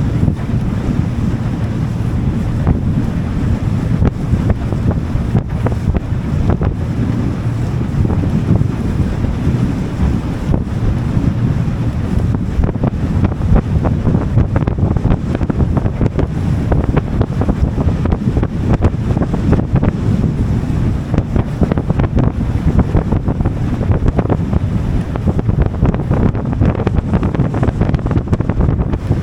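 Wind buffeting the microphone on a moving boat: a steady, loud low rumble with a rush of water and the boat's motor underneath.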